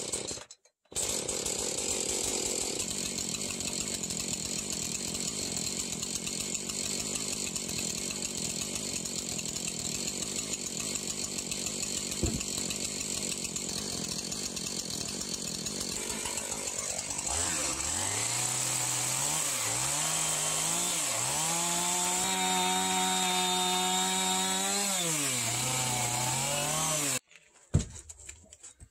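Gasoline chainsaw running steadily, then revving up and down several times and holding at high revs before it cuts off suddenly near the end.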